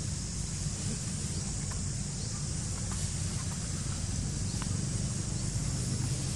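Steady outdoor background: a low rumble and a high even hiss, with a few faint short chirps.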